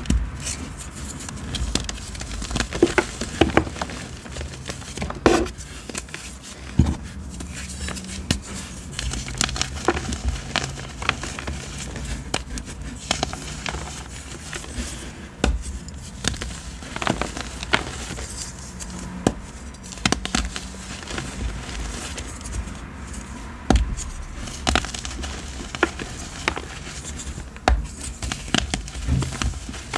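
Blocks of Alphafit gym chalk crunched and crumbled between the fingers into loose powder: an irregular stream of dry crackles with sharper snaps as pieces break off.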